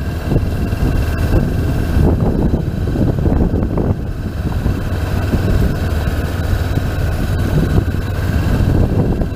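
Honda CB500X motorcycle's parallel-twin engine running at low, steady revs, heard from on board the moving bike.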